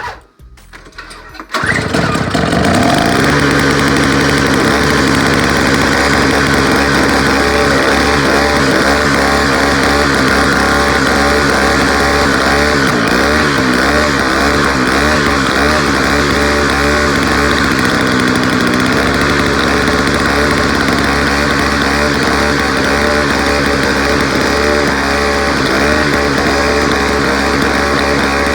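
Small two-stroke weed-whacker-type snowblower engine catching about a second and a half in, after a brief sputter, and then running continuously and loud at a steady high speed.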